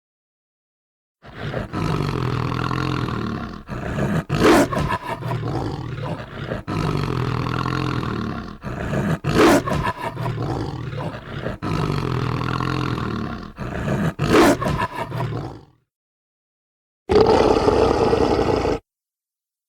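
Werewolf sound effect: a long, deep, rough growl starting about a second in, with a sharp snarl breaking out about every five seconds, three times. After a short pause comes a brief rough roar near the end.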